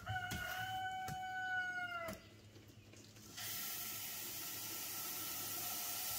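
A rooster crows once, a single held call of about two seconds. About three seconds in, a steady hiss starts and runs on: a can of Great Stuff expanding foam spraying through the valve stem into a lawn mower tire.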